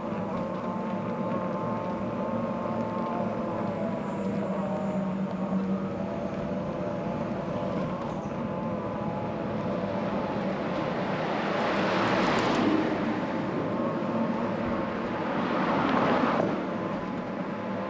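Road traffic: two vehicles swell past, one about twelve seconds in and another about sixteen seconds in, over a steady hum.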